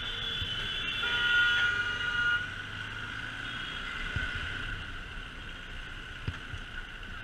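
A vehicle horn honks for about a second and a half, starting about a second in, over the steady wind and engine noise of a motorcycle riding through city traffic.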